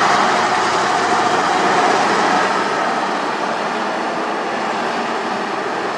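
Kato mobile crane truck driving off slowly along a gravel road: its diesel engine and tyres make a steady noise, a little louder in the first couple of seconds.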